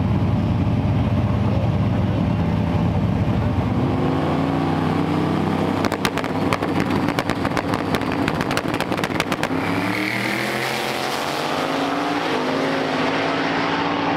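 Two drag cars, a black fourth-generation Chevrolet Camaro and a red Fox-body Ford Mustang, running loud at the starting line, then a rapid popping crackle for about three seconds. About ten seconds in they launch hard, engine pitch climbing in steps through the gears as they pull away down the strip.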